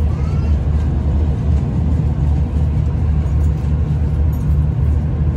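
Diesel passenger train running at speed, heard from inside the carriage: a steady low rumble of engine and wheels on the rails.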